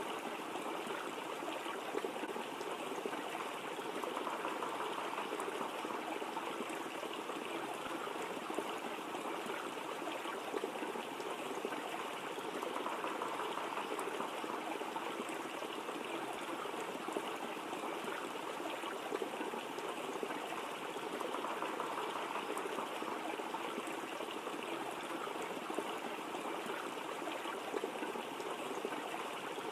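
Steady rush of water from a waterfall, even and unbroken.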